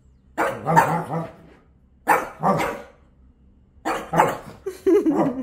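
French bulldog puppy barking: about ten short, sharp yaps in three quick bunches, with brief pauses between them.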